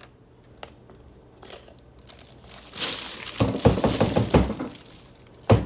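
Black+Decker cordless handheld vacuum's plastic dust bowl being opened and emptied: a rustling pour of debris, then a run of knocks as the bowl is tapped out, and sharp plastic clicks near the end as the parts are put back.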